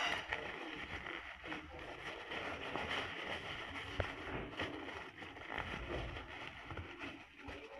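Tissue paper rustling and crinkling as it is handled and torn apart, with a single sharp click about four seconds in.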